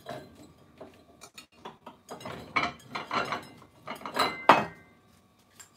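Dishes clinking and clattering as plates are handled at a kitchen cupboard: scattered light knocks, then a busier run of clatter from about two seconds in, the loudest clack about four and a half seconds in.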